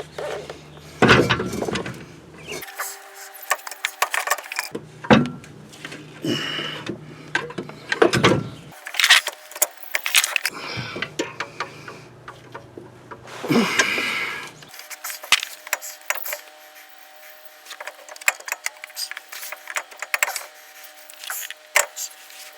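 Irregular metallic clanks, knocks and scraping as a car's power transfer unit is wrestled into position against the surrounding drivetrain parts, with a faint steady hum behind.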